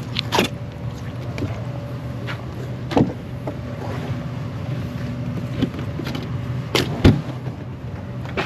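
A motor hums steadily, with several sharp knocks over it, the loudest two close together about seven seconds in.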